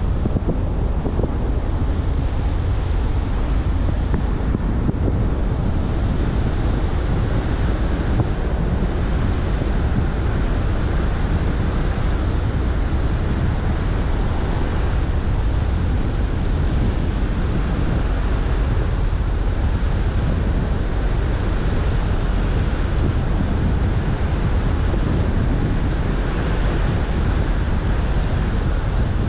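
Steady wind noise buffeting a car-mounted microphone, mixed with the rumble of tyres and road noise from a car driving along. The sound is a loud, even rush, heaviest in the low end, with no distinct events.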